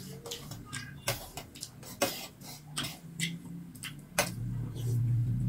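Steel spoons clinking and scraping on stainless steel plates of raw rice in water, a run of sharp irregular clicks. About four seconds in a low steady hum comes in and stays louder than the clicks.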